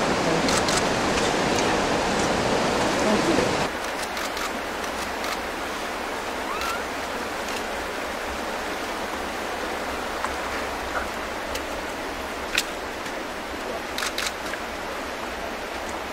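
Steady rush of flowing water around the hot-spring pool, fuller and louder at first, then dropping to a softer hiss about four seconds in. A few faint sharp clicks near the end.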